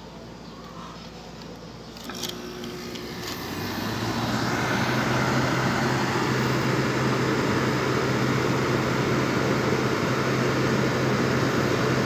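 Sharp window-type air conditioner being plugged in: a couple of clicks about two seconds in, then the compressor and fan start and build over about a second into a steady hum with a low drone. The unit is running with no R22 refrigerant in it.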